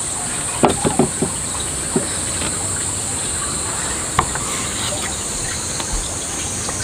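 Steady high-pitched insect chorus, with a few light knocks: a quick cluster about a second in and single ones around two and four seconds.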